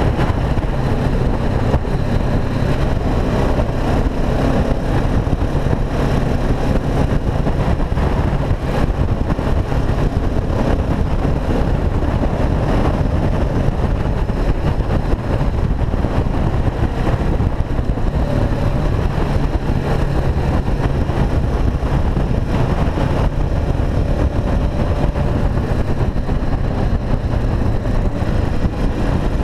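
KTM 690 SMC R supermoto's single-cylinder engine running at a fairly steady road speed, heard onboard under heavy wind rush on the microphone.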